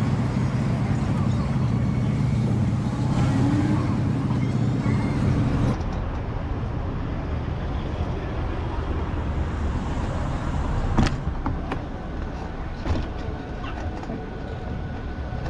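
Road traffic with a motor vehicle's engine running close by for about the first six seconds. The sound then drops abruptly to lighter, even traffic noise, with a few sharp clicks later on.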